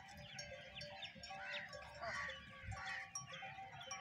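Goats bleating repeatedly among a moving herd of livestock.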